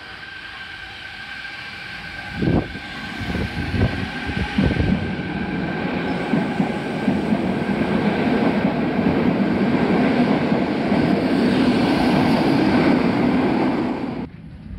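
Fukuoka City Subway Nanakuma Line linear-motor metro train pulling out of the station. A few heavy clunks come as it starts to roll, then a rumble of wheels on rail grows steadily louder as it gathers speed, and the sound cuts off suddenly near the end.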